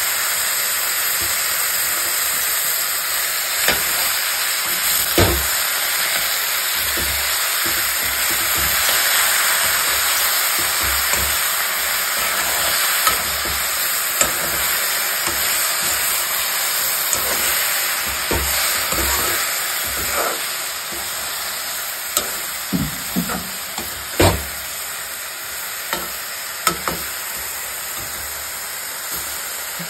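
Mushrooms frying in a pan: a steady sizzling hiss with scattered clicks and knocks of a stirring spoon against the pan, thickest a little past the middle. The sizzle eases somewhat over the second half.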